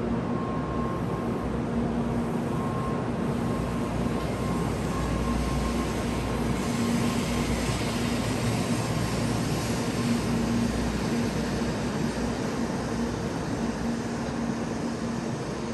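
Kyushu Shinkansen bullet train pulling out of the station and gathering speed along the platform: a steady electric hum over a rushing rumble, a little louder about midway and fading near the end as the train leaves.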